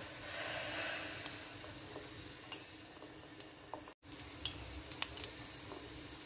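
Sesame-coated dough balls frying in a pot of oil on low heat: a faint sizzle with scattered small pops and crackles, a little stronger in the first second. The sound cuts out for an instant about four seconds in.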